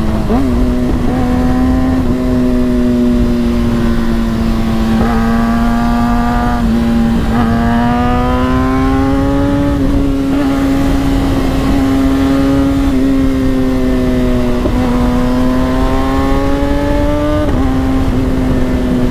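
Kawasaki ZX-6R 636 inline-four engine running while riding, over steady wind and road noise. A held engine note sits under higher tones that rise and fall and break off every few seconds, as the revs climb and drop.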